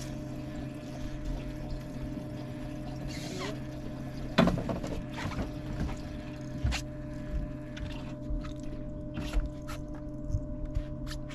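Gear knocking and clicking on the deck of a bass boat while a fish is being fought and netted, over a steady low hum. The loudest sound is a single thump about four and a half seconds in, just after a short falling squeal. Sharp clicks and knocks follow every second or so, with some water splashing.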